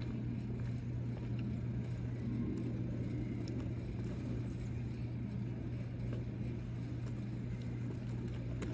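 Steady low hum and rumble of outdoor background noise, unchanging throughout.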